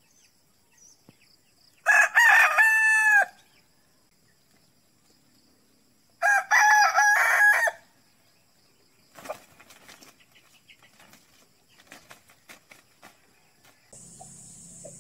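A rooster crowing twice, each crow lasting about a second and a half, about four seconds apart, followed by faint scattered ticks.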